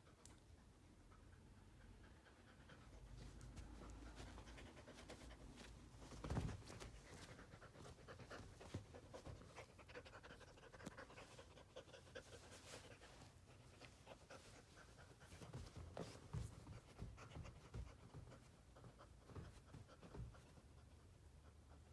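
A dog panting faintly and rapidly while humping a plush toy duck, with soft rustling and clicks of movement and one louder thump about six seconds in.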